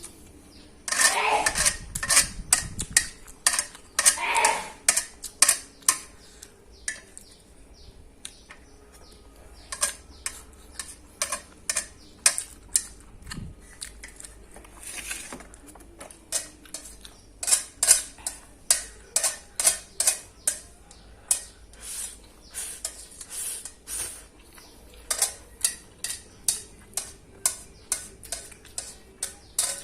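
Close-up eating sounds of a person eating a plate of Indomie goreng fried instant noodles: a long run of short, sharp wet chewing clicks, a few louder bursts in the first few seconds.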